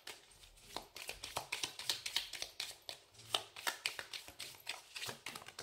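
A deck of oracle cards shuffled by hand, the cards slapping together in an irregular run of soft, quick clicks, several a second.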